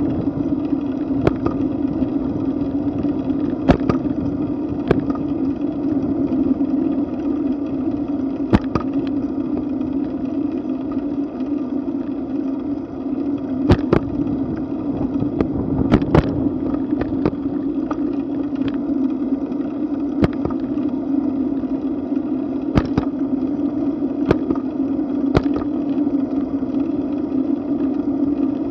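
Steady rushing hum of a bicycle rolling along a paved trail, heard from a camera mounted on the bike: wind on the microphone and tyre noise on asphalt. Scattered sharp clicks and knocks from bumps and rattling of the bike and mount.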